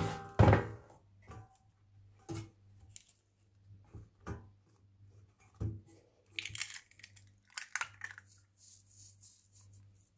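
Hands working in a nonstick air fryer basket: two loud clunks of the basket near the start, then scattered soft knocks as bread slices and a drinking glass go in. About six seconds in come a couple of seconds of crackly tearing and rustling, then faint light ticks, all over a low steady hum.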